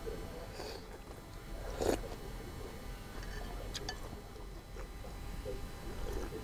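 People eating bowls of bún bò Huế noodle soup: soft chewing and mouth sounds, with one sharp knock about two seconds in and a few faint clicks a couple of seconds later.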